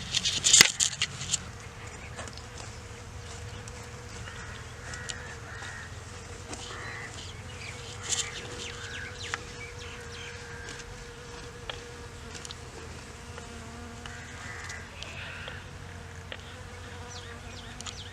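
Honey bees buzzing steadily around mustard flowers, with birds chirping now and then. A few sharp clicks in the first second or so.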